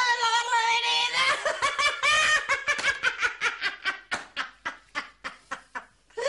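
A woman laughing hard: a held, drawn-out laugh for about a second, then a run of short laughing bursts that come further apart and grow fainter toward the end.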